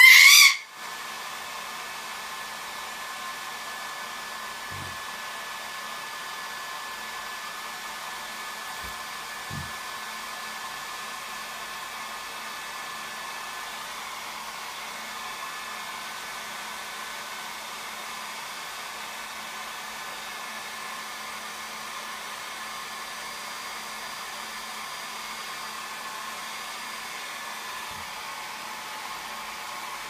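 Hair dryer blowing steadily. At the very start a male eclectus parrot gives one loud squawk, about half a second long.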